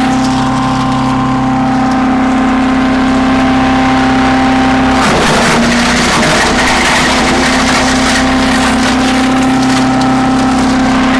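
Earthquake wood chipper's gas engine running steadily at speed. About five seconds in, a branch goes through the blades: the engine bogs down briefly under the load with a burst of crunching and splintering, then recovers.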